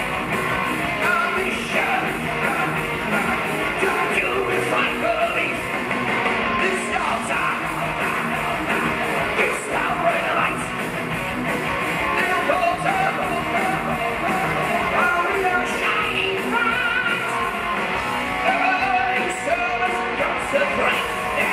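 Heavy metal band playing live: a sung lead vocal over distorted electric guitars and drums, loud and continuous, heard from within the audience of a theatre.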